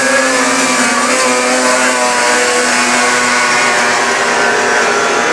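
Two racing snowmobiles pulling away from the start and climbing the hill, their engines held at high, steady revs after revving up.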